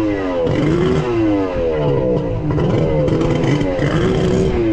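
Kawasaki X2 jet ski's rebored 1100 two-stroke triple being revved in repeated throttle blips, its pitch rising and falling over and over about once a second. It is running in a way the owner hears as another disappointing result, not as a healthy engine.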